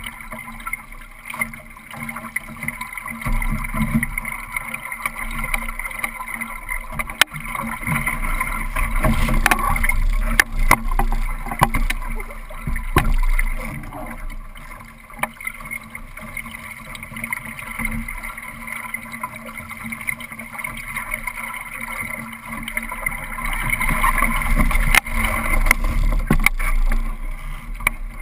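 Wind buffeting the boat-mounted camera microphone over water rushing along the hull of a Solo sailing dinghy under way. The low buffeting swells a few seconds in and again near the end, with a few short sharp knocks in between.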